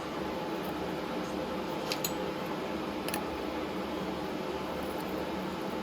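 A steady mechanical hum, like a fan running, with a few light clicks about two and three seconds in.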